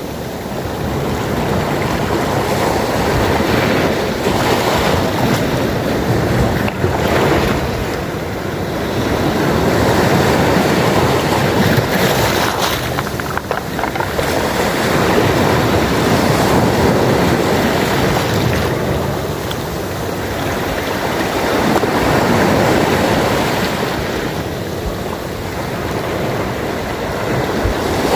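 Sea waves surging and washing on the shore, the rush of water swelling and ebbing every few seconds.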